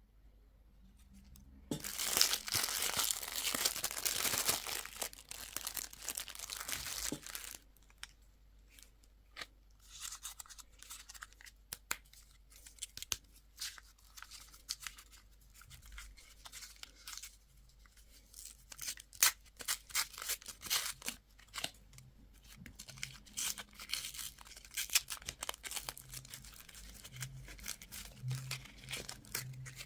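Crinkly wrapper being torn open: a dense tearing rustle about two seconds in that lasts some five seconds, then scattered crinkles and crackles as the packaging is handled.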